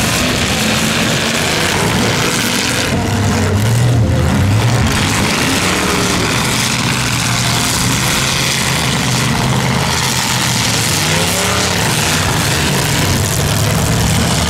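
Several demolition-derby cars' engines running and revving, the pitch rising and falling as the drivers throttle up and back off.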